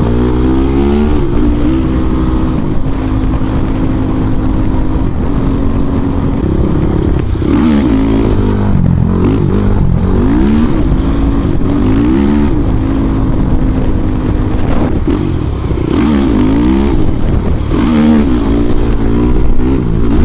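Honda TRX450R quad's single-cylinder four-stroke engine under way, holding steady pitches that step between gears, then revving up and down repeatedly through the second half.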